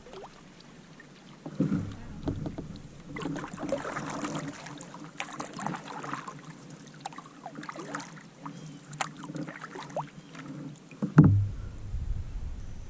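Kayak paddling: paddle blades dipping and splashing in lake water, with scattered knocks. A loud thump comes about eleven seconds in, followed by a low rumble.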